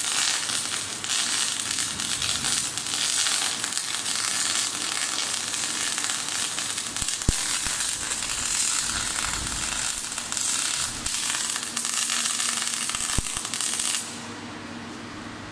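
MIG (gas-shielded) welding arc from a PoWer Mig 500 welder, crackling and sizzling steadily with a couple of sharp pops, then cutting off suddenly about a second and a half before the end.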